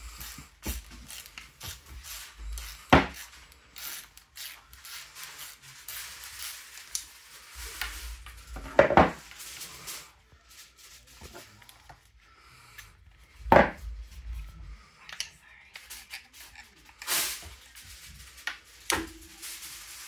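Handling noise from working on a motorcycle's metal rear turn-signal bracket and hand tools on a wooden table: scattered clicks, taps and rubbing, with four sharper clanks a few seconds apart.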